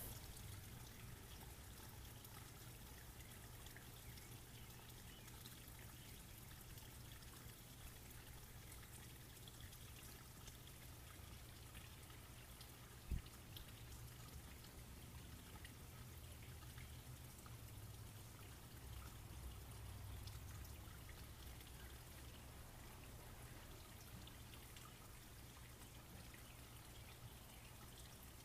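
Near silence: a faint steady hiss over a low rumble, with a single click about halfway through.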